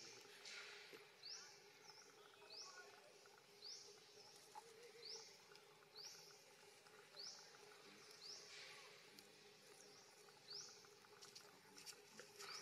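Faint repeated bird call: a short, high chirp sweeping upward, about every second or so, over quiet forest background. Two brief soft swishes come through, one just after the start and one about two thirds of the way in.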